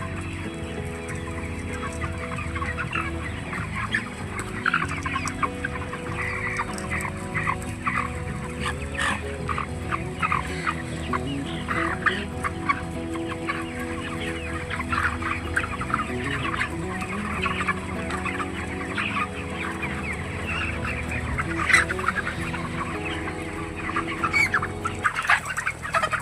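A flock of chickens in a poultry house clucking and calling, a dense, continuous chatter of many short calls.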